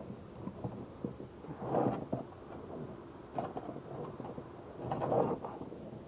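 A PVC pipe fitting worked against a plastic cooler lid by hand: plastic scraping and rubbing on plastic in three short bursts, about two seconds in, halfway through, and near the end.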